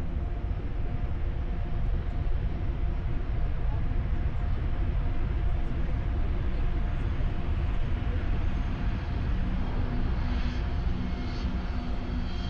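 Steady engine and air noise of a small private plane in flight, heard inside the cabin: a constant low rumble with a steady hum, joined by a second, lower hum about two-thirds of the way in.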